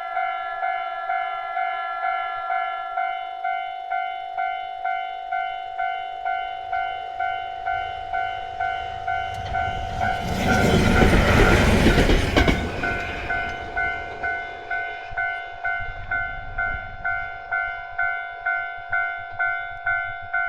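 Japanese level-crossing warning bell ringing steadily, about two strikes a second. About ten seconds in, a DE15 diesel locomotive with a single-track Russell snowplow passes through the crossing with a loud rushing rumble that lasts about two and a half seconds and briefly drowns out the bell.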